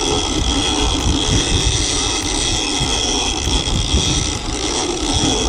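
Boat engine running steadily under way, a continuous rumble with a steady high whine over it.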